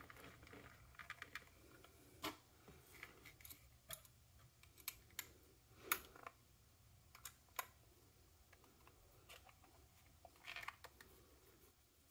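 Faint, irregular small clicks and ticks, about a dozen, from a precision hex driver working small screws through a flexible TPU mount into a drone's plastic shell.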